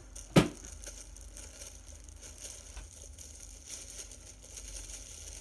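Plastic bread bag crinkling as it is shaken and tipped to slide slices of bread out, with one sharp thump about half a second in.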